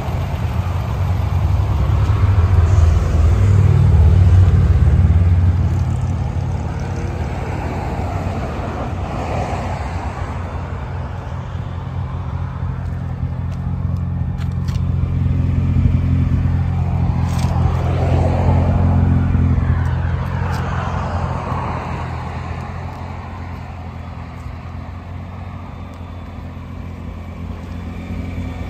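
Nissan GT-R R35's twin-turbo VR38DETT V6 idling steadily through its custom 3.5-inch exhaust. It swells louder and fades back twice.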